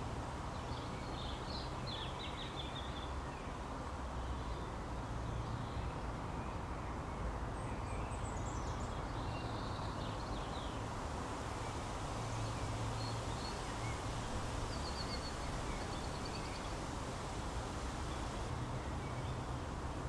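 Outdoor ambience: a steady low background rumble and hiss with scattered bird chirps, a few short trills about a second in, again around eight seconds and near fifteen seconds.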